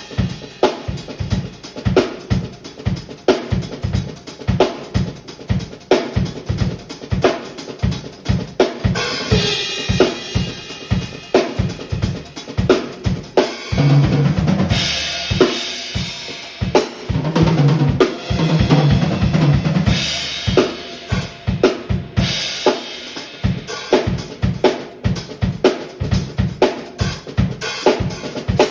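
Acoustic drum kit played in a steady beat, bass drum and snare hits marking the time, with stretches of cymbal wash and some deeper, ringing drum hits midway.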